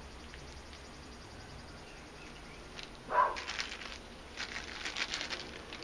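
Crinkling and rustling of wet newspaper and a plastic bag as mail-order aquarium plants are unwrapped by hand. It starts about three seconds in with a short, loud sound, followed by a run of crackles.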